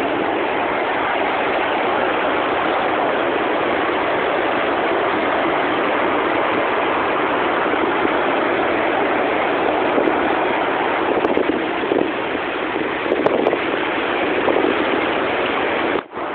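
Rough sea surf breaking and washing up a sandy beach: a steady, dense rush of water that swells a little in the later part and drops out for a moment near the end.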